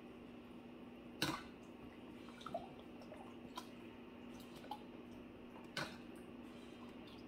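Thermomix spatula scraping and knocking against the stainless steel mixing bowl, giving a few sharp clicks: the loudest about a second in and near six seconds, with fainter wet taps between. A steady low hum runs underneath.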